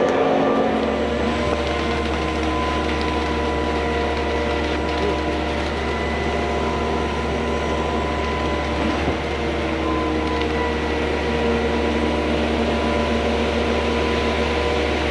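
Concrete pump truck running while pumping concrete, with a steady low hum that comes in under a second in and several steady whining tones above it.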